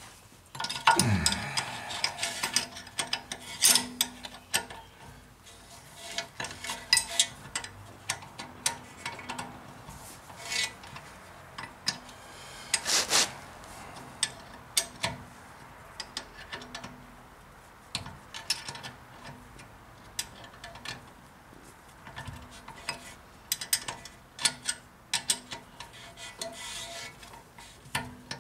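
Ratchet wrench clicking in short irregular runs as the rear brake caliper bolts are tightened, with occasional metallic clinks of the tool against the caliper. The loudest knocks come about a second in and again about halfway through.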